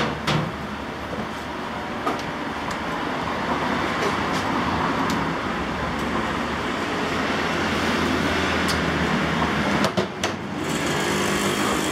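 Steady road traffic noise with a low rumble, swelling slightly over the first several seconds, with a few light metallic clicks as a motorcycle fork tube is handled.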